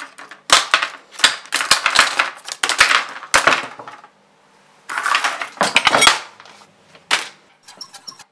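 Light plastic clattering and clicking as DJI Phantom 3 propellers are set down one after another on a table, with a few lighter ticks near the end as a propeller is fitted onto a motor by hand.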